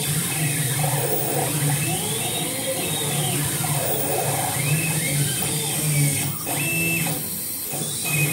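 Two CNC milling-engraving machines running together: their stepper drives whine in pitches that rise and fall as the axes speed up and slow down, over an on-and-off low hum.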